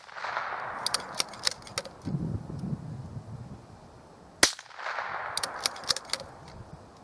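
Scoped bolt-action rifle fired from a bench: the rolling echo of a shot, then a second loud shot about four and a half seconds in. Each shot is followed by its echo and a few short sharp clicks.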